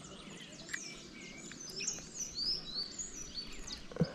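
Several small birds chirping, with many short rising and falling notes, over a steady low outdoor hiss; one short knock near the end.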